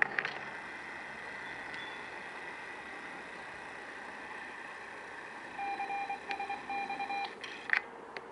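A run of short electronic beeps at one pitch, in a few quick groups starting about five and a half seconds in, with a click at the start and sharp clicks near the end over a faint steady tone.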